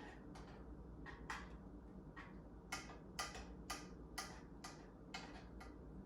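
A spoon stirring homemade ketchup in a saucepan, knocking lightly against the pan in a regular rhythm of about two taps a second, getting stronger a little under halfway through.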